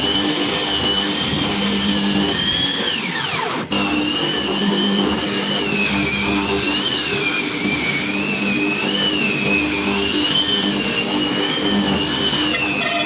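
Electric woodworking power tool running at high speed with a wavering whine that rises and falls with the load; once, a few seconds in, the pitch slides downward before the sound resumes.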